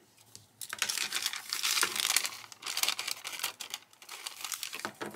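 Scissors cutting through a thin, crinkly sheet of paper as it is handled. The crackling is dense for a couple of seconds, then thins to scattered crinkles.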